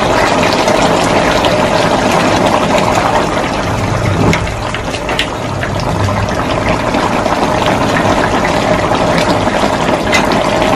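Stew simmering and bubbling in an aluminium wok, a steady crackling bubble with a constant hum underneath.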